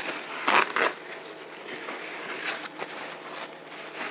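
Paper towels being torn from a roll, a short rustling rip about half a second in, over a steady hiss of frying grease.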